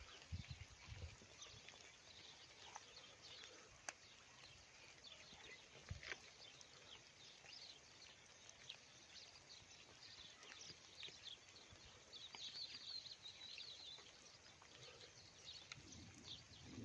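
Faint birdsong: many short, high chirps scattered throughout, with a denser twittering run about three-quarters of the way through.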